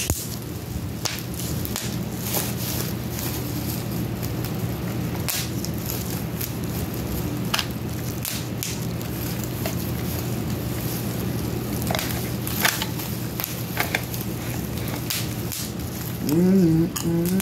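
Plastic parts of a toy gun clicking and rattling in the hands as it is being assembled: scattered small clicks over a steady low hum. Near the end a drawn-out voice-like hum comes in.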